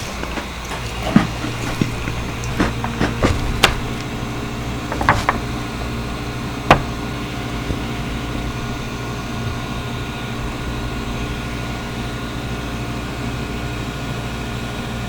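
A steady appliance hum, with several sharp clicks and taps over the first seven seconds.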